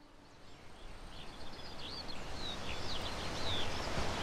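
Birds chirping and whistling over a steady outdoor noise bed, fading in from near silence at the start.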